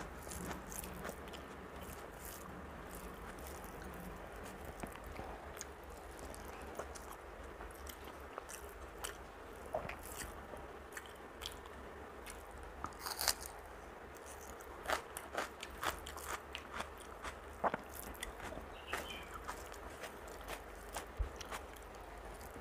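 Close-miked eating sounds: chewing with scattered soft crunches and clicks, while fingers mix rice with beetroot paste on a steel plate.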